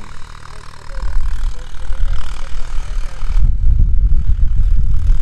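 Ford 3600 tractor working a field at a distance, pulling a cultivator, heard as a low hum under heavy wind rumble on the microphone. The rumble comes in about a second in and is loudest from about three and a half seconds.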